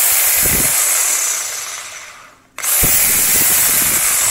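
Makita JR3051T corded reciprocating saw running free at full speed with no blade fitted. It winds down when the trigger is let go about a second in, starts again at full speed near three seconds, and begins winding down once more at the end.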